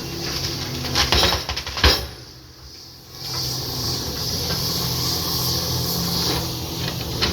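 Heavy machine engine running while trees are felled, with two sharp cracks about one and two seconds in, then a steady run with a hiss.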